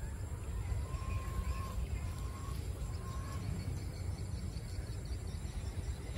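Outdoor ambience: a steady low rumble, with three faint drawn-out calls in the first few seconds.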